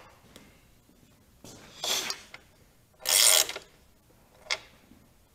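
A ratchet wrench working a motorcycle's rear axle adjuster nut in two short bursts of ratcheting, the second louder, followed by a single sharp click near the end. The nut is being turned to take up slack in the drive chain.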